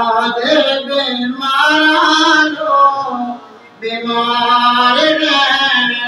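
A man singing a naat (Moharram kalam) unaccompanied, in long held, wavering notes, with a short pause for breath about three and a half seconds in.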